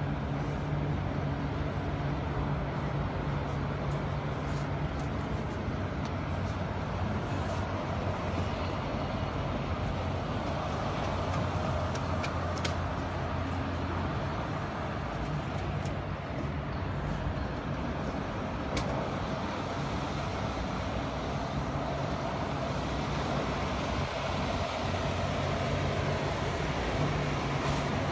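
Steady city street traffic noise, with the low hum of a nearby engine running through the first half and again near the end.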